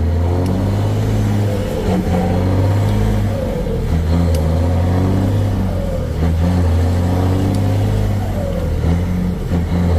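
Heavy truck's diesel engine heard from inside the cab, running under load as the truck pulls along the street, its pitch shifting up and down several times as the revs change.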